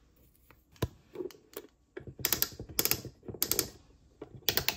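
Bluey wooden toy barbecue set making a knock, then short bursts of rapid clicking that repeat every half second or so.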